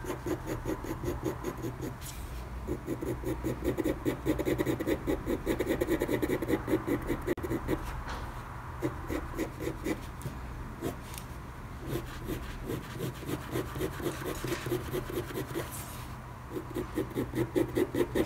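Coloured pencil hatching on paper: quick back-and-forth strokes at several a second, in runs broken by short pauses, the point kept sharp to press the colour in firmly.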